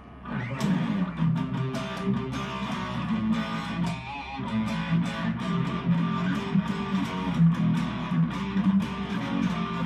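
Harley Benton Modern Strat SSH electric guitar on its bridge humbucker with a distorted amp tone, playing a riff of quickly picked notes that starts about half a second in.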